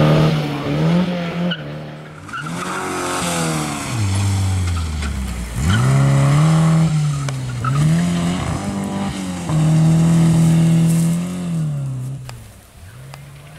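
Skoda 105 rally car's engine revving hard, its pitch climbing and dropping repeatedly as the car accelerates, lifts and changes gear at full race pace. It falls away and goes quieter near the end.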